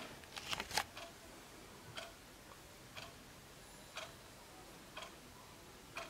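Wall clock movement ticking once a second with short, sharp ticks. Near the start there is a brief cluster of louder clicks.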